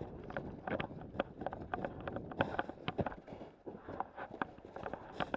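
Running footsteps on rough outdoor ground: a quick, irregular run of thuds and crunches, with wind rumbling on the microphone.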